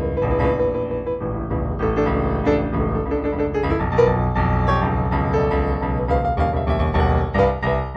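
Improvised solo piano music, a run of single notes over held chords.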